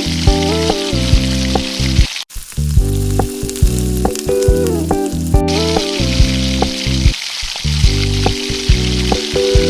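Food sizzling as it fries in a pan, under background music with a melody and a regular beat. The sizzle drops out for about three seconds around the middle while the music carries on.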